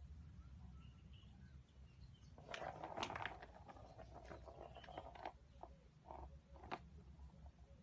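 Faint clicks and knocks of cats pawing at a plastic ball-track toy, with a louder rattling stretch about two and a half seconds in and a few single taps after.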